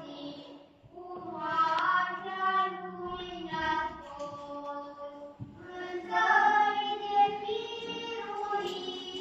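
Voices singing an Orthodox church hymn in phrases, with a short pause about half a second in and another about five seconds in.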